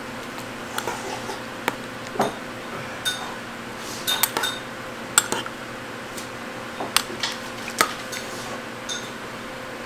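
Metal spoon clinking and scraping against an earthenware bowl while stirring hot rice soup: about fifteen irregular sharp clinks, some with a short high ring.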